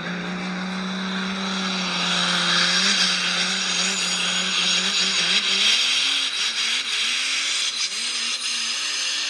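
Small electric motor and gears of a toy monster truck fitted with an electric drive kit, whining as it pulls on a tow chain. The whine is steady for about two seconds, then wavers up and down as the throttle changes, over a loud hiss that peaks in the middle.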